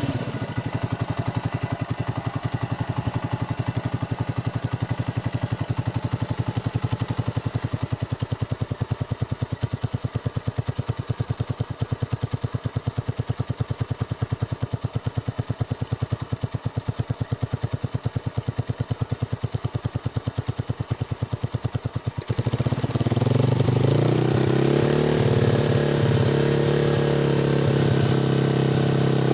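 Honda TMX's single-cylinder four-stroke engine idling through a curve-type bullet pipe muffler with its silencer insert fitted, a steady, even exhaust pulse. About 22 seconds in it is revved up and held at higher revs, louder, with the pitch wavering.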